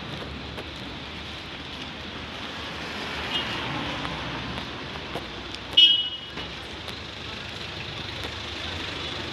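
Street traffic noise with a short car horn toot about six seconds in and a fainter toot about three seconds in.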